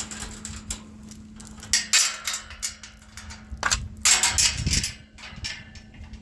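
A run of sharp knocks and clatters, loudest in two bursts about two seconds in and again around four seconds in.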